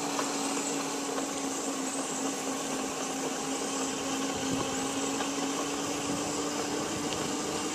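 Steady motor hum holding one constant pitch, with a wash of noise over it.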